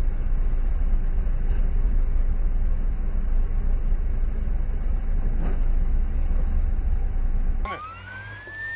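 Steady low rumble of a moving vehicle with wind noise on the microphone. It cuts off abruptly near the end, when a siren starts a rising wail.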